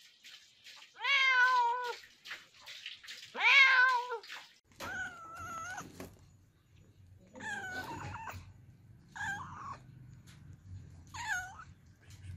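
Domestic cats meowing: two loud, drawn-out meows in the first few seconds, then four shorter, quieter meows over a low steady background rumble.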